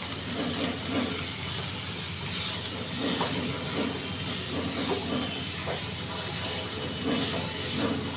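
Diced vegetables frying in a nonstick kadhai over a steady hiss, while a spatula stirs and scrapes them against the pan in short, irregular strokes.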